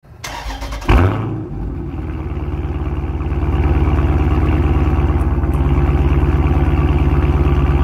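Car engine starting at the exhaust tailpipe: a sharp burst as it catches about a second in, then a steady idle with an even exhaust pulse that grows a little louder over the next few seconds.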